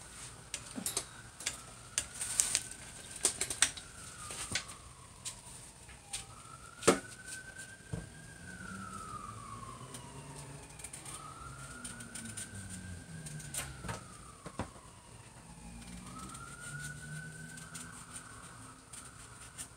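Knife clicking and scraping against pumpkin rind in sharp, irregular knocks, which are the loudest sounds. Behind them a siren wails, slowly rising and falling about four times.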